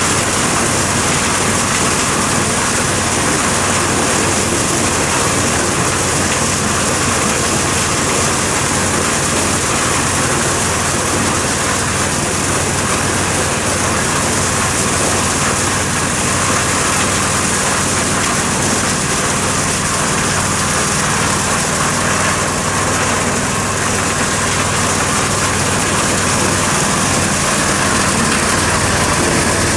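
Engine-driven corn sheller running steadily while shelling unhusked corn: a constant engine hum under a dense, even hiss and rattle from the threshing drum.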